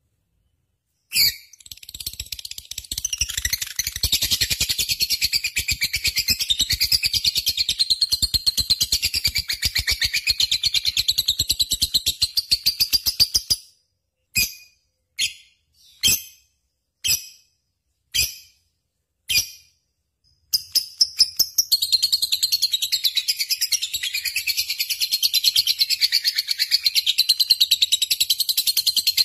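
Lovebird chattering in long, fast rapid-fire trills, the continuous 'gacor' singing used as a masteran recording. One run lasts about twelve seconds, then come about six short separate calls roughly a second apart, then another long run from about two-thirds of the way in.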